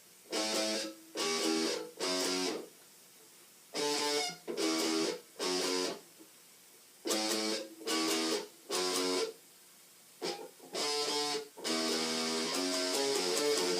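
Electric guitar with a DiMarzio Crunch Lab humbucker played through a Line 6 Uber Metal distortion pedal into a small 10-watt Fender amp: a riff of short chord stabs in groups of three with brief pauses between, running into continuous riffing near the end.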